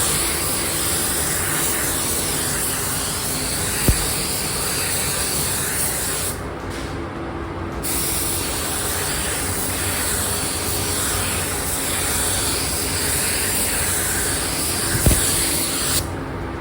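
Paint spray gun hissing steadily as it sprays a coat onto the motorcycle parts, with the trigger let off for about a second and a half partway through and again at the very end. A steady low hum runs underneath, and two sharp clicks come about four seconds in and near the end.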